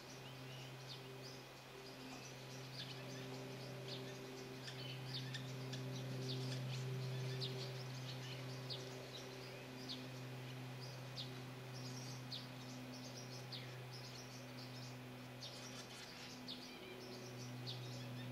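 Swallows and house martins twittering: a busy run of short, high chirps throughout, over a steady low hum.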